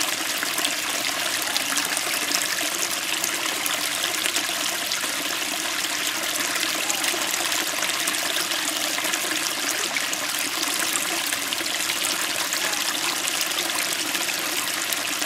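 Small stream flowing over rocks: a steady babble of water with crisp splashing where the current strikes the stones.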